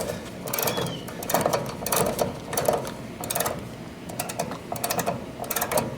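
Ratcheting service wrench clicking in short repeated strokes, about two or three clicks a second, as it cranks the service valve stems of an R-410A heat pump's outdoor unit closed for a pump-down.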